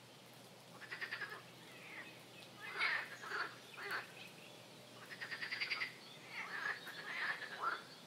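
Wetland birds and frogs calling: a run of short downward calls and rapid pulsed trills, coming in bouts about a second apart.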